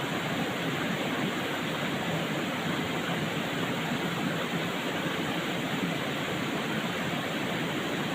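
Steady rush of a fast-flowing mountain river, an even noise that does not change.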